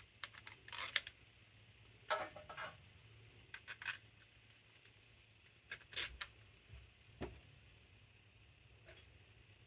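Screws and a screwdriver clicking and clinking against a Carter Thermoquad carburetor as its mounting screws are put in: a few light metallic taps at a time, with pauses between.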